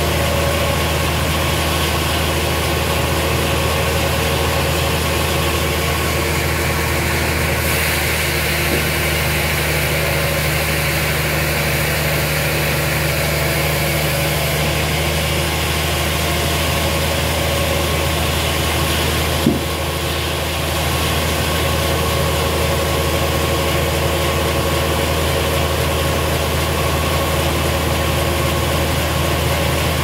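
Sawmill's stationary engine running steadily at an even idle, with one short knock about two-thirds of the way through.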